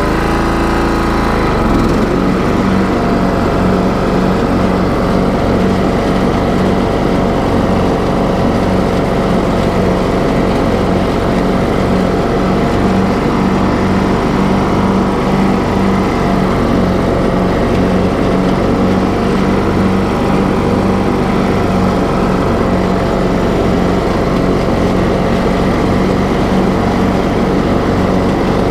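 A TroyBilt riding lawn mower's engine running steadily as the mower drives across the lawn. Its note shifts once, about two seconds in, then holds steady.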